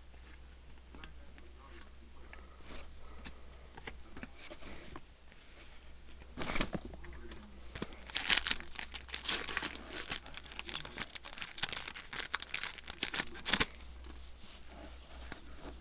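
Foil booster pack wrapper crinkling and tearing as it is handled and opened, loud and crackly from about six and a half seconds in until shortly before the end. Before that, faint light clicks of trading cards being flicked through.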